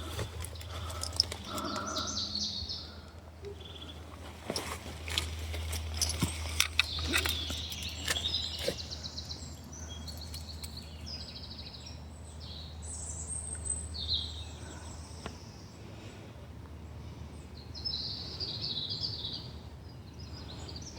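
Small birds chirping and trilling on and off over a steady low rumble of wind and ambient noise, with scattered faint clicks and knocks.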